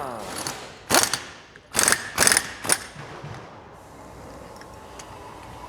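Metal knocks and clicks of tools and parts on a car's front shock-absorber strut being assembled on the bench: four sharp knocks within the first three seconds, then only low background noise.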